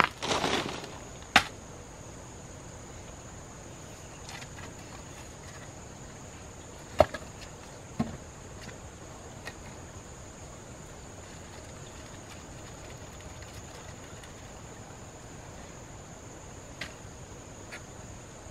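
A hoe scraping and pushing loose soil, followed about a second later by a sharp knock and, several seconds on, two more knocks a second apart. Under it, a steady high-pitched insect drone.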